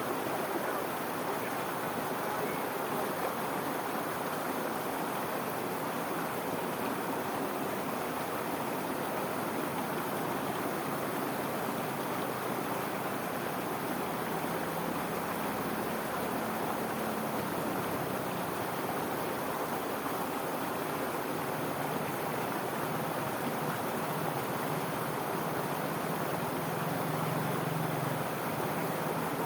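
Steady rush of water pouring over a small irrigation-channel waterfall into a whirlpool. A low hum joins beneath it about halfway through.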